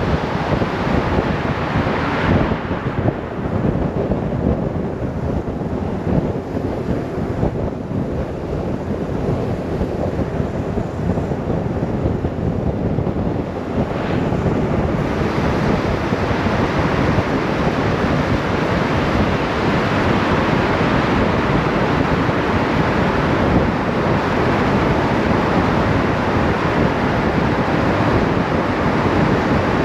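Wind rushing over the microphone on a moving BMW R 1150 RS motorcycle: a steady, dense rush of wind and road noise. It grows brighter and a little louder about halfway through.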